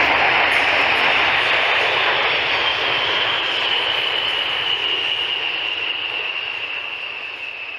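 Military aircraft engines passing by: a loud roar with a high whine that slowly falls in pitch, fading steadily as the aircraft moves away.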